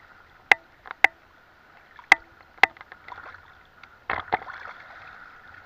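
Shallow sea water sloshing and lapping around a camera held at the surface, with four sharp clicks in two quick pairs, then a splash about four seconds in.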